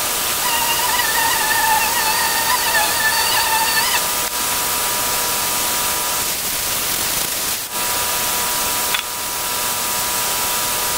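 Steady loud hiss with a faint high steady tone under it. For the first few seconds a wavering, whistle-like high tone sounds over the hiss, and the hiss dips briefly a few times later on.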